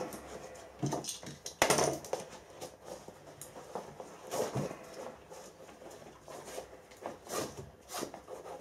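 Handling and rustling of a heavy cloth tool roll as its strap is pulled loose from the buckle: irregular rubbing and scuffing sounds, with a few louder scrapes.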